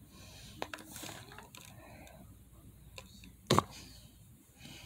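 Handling noises: a few soft clicks and taps, then one sharp knock about three and a half seconds in.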